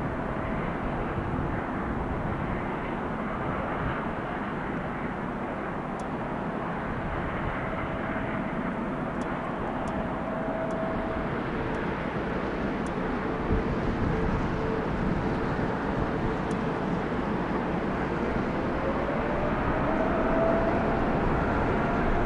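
Jet engines of a large airliner running, a steady rushing noise with a whine in it; near the end the whine glides up in pitch as the noise slowly gets louder.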